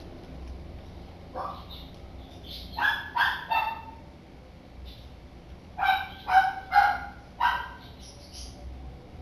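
Dog barking: one short rising yelp, then a quick run of three barks and, a few seconds later, a run of four.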